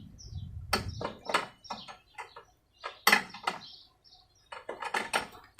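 Lawn mower parts and bolts clinking and knocking as they are handled, an irregular run of sharp metallic clicks, with birds chirping in the background.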